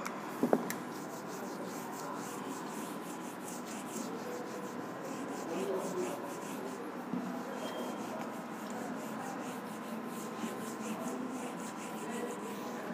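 Handheld whiteboard eraser rubbing across a whiteboard in repeated strokes, wiping off marker writing. A short knock sounds about half a second in.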